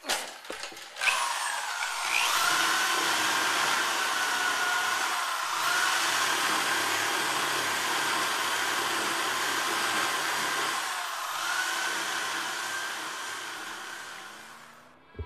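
Drill spinning a 3M rubber eraser wheel against a fibreglass camper pop top, scrubbing off decal and glue: a steady motor whine over a rough rubbing hiss. It starts about a second in, after a few handling knocks, and eases off near the end.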